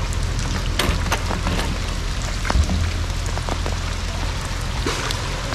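Heavy rain pouring down steadily, with many sharp drops tapping close by.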